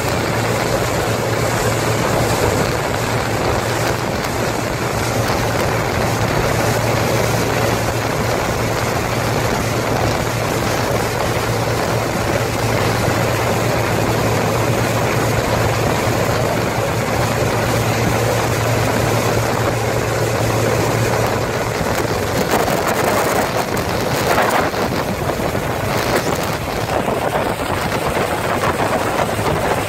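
Motorboats running at speed on open water: a steady engine hum over rushing water and wind. The hum drops out about two-thirds of the way through, leaving the rush of water and wind.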